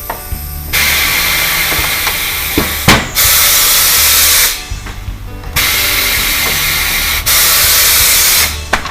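Compressed air hissing in two long blasts, each a few seconds long, with a sharp click near the end of each.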